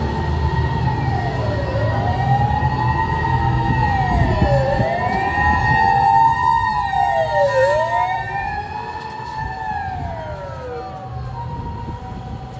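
Emergency vehicle siren wailing, its pitch rising and falling about every two seconds. It grows louder to a peak about halfway through, then fades as it passes, over a low steady rumble.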